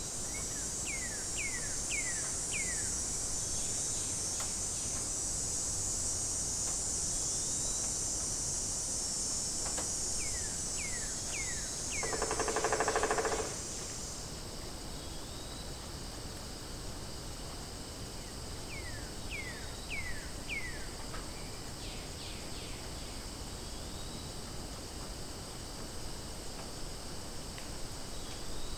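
Steady high-pitched chorus of insects, with a bird call of four quick falling notes heard three times. A loud buzzy call about 1.5 s long, from an unidentified animal, comes near the middle. Part of the high insect sound stops soon after it.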